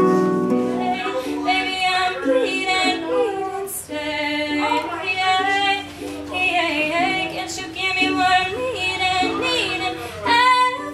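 Concert harp notes ring out for about the first second, then a young woman sings a slow melody with vibrato over held accompanying notes.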